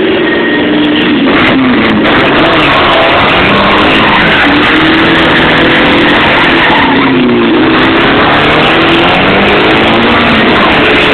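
Drift car's engine revving hard, its pitch swinging up and down through the slide, over tyre squeal. Loud throughout.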